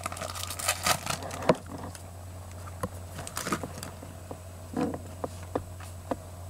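Foil booster-pack wrapper crinkling and tearing for about the first second and a half, then scattered light clicks and taps as the trading cards are handled, over a steady low hum.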